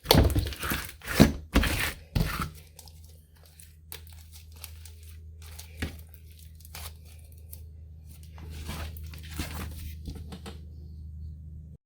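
Clear slime with crushed eyeshadow mixed in, being squished and stretched by hand: a quick run of loud sticky crackles and tearing pops for about two and a half seconds, then fainter scattered crackles over a low steady hum, cutting off just before the end.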